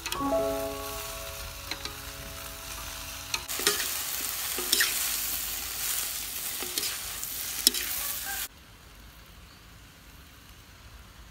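Water spinach sizzling in a hot aluminium wok as it is stir-fried, with metal tongs clinking and scraping against the pan. Several ringing tones sound over the first few seconds, and the sizzling cuts off suddenly about eight seconds in, leaving a quieter background.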